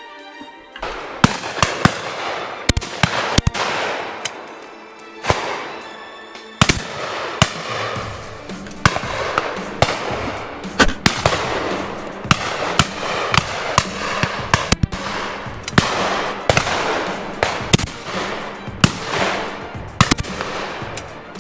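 Shotgun fire from the guns shooting driven pheasants: many sharp shots at irregular intervals, some loud and close, others fainter, with music playing underneath.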